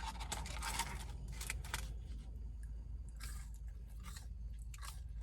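Close-up chewing and crunching of fast food in the mouth, busiest in the first couple of seconds, then sparser small clicks and smacks.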